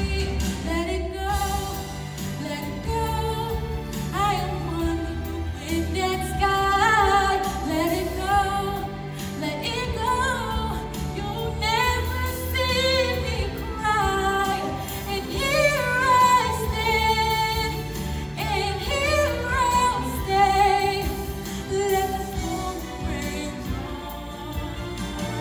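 A woman singing a song with long held notes over sustained backing music.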